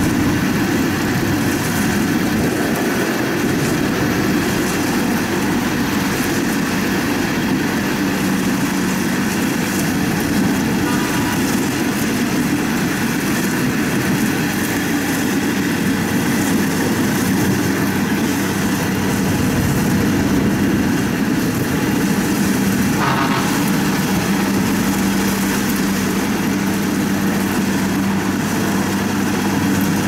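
Kubota DC70 combine harvester running steadily, a continuous loud machine drone with a constant low hum.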